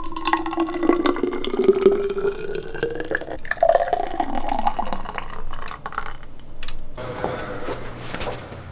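A thick blended blueberry smoothie poured from a blender jar, first into a metal insulated bottle and then into a plastic measuring cup, the pour rising in pitch as each vessel fills.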